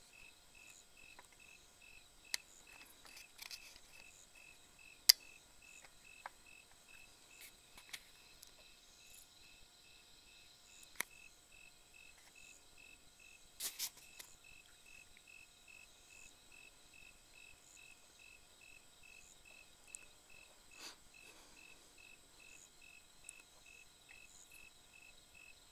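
Crickets chirping at night, an even high pulse about twice a second, over a faint steady insect drone. A few sharp clicks cut through, the loudest about five seconds in, with a short double knock a little before halfway.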